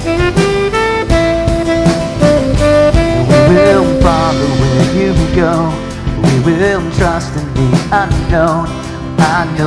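Live worship band music: a saxophone plays long held notes over acoustic guitar and drums, then a lead voice comes in singing with vibrato about three and a half seconds in.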